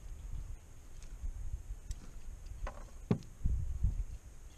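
Handling noise in a kayak as a landed redfish is worked with pliers and a lip grip in the net: a few light knocks and clicks over a low rumble.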